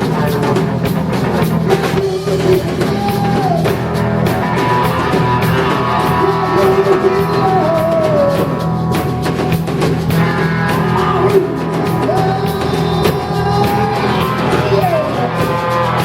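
Live rock band playing, with drum kit, electric guitar and singing.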